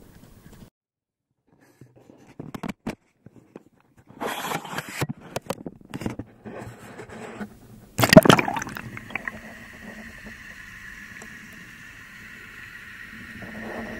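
Action camera dipped into river water from a paddleboard. Near silence at first with a few clicks, then sloshing and splashing against the camera from about four seconds in. A loud splash about eight seconds in as it goes under, then the steady, muffled sound of being underwater with a faint high whine.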